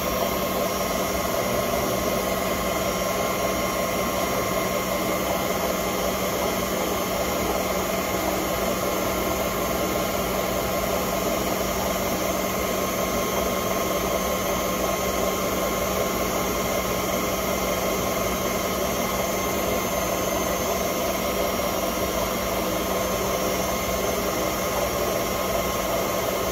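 Harrison Alpha 400 CNC lathe running steadily: a constant drone with several fixed whining tones from the spindle drive and motor, unchanging throughout.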